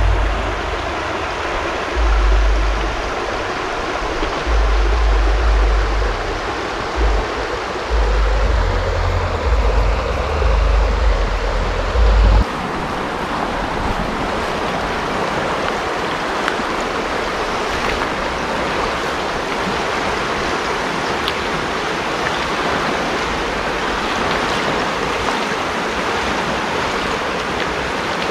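Shallow river water running over rocks, with repeated low buffeting bumps on the microphone during the first twelve seconds. About twelve seconds in, the sound changes to the steady rush of the river in flood, swollen and fast-flowing.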